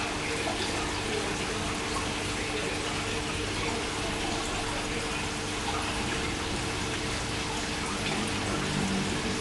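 Aquarium water circulation running: a steady rush of moving water with a steady low hum under it.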